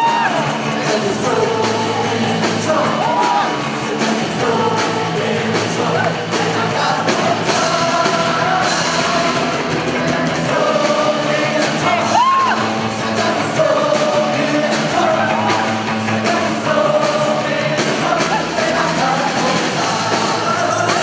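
Live worship band playing a song: drum kit, electric guitars and keyboard under sung vocals.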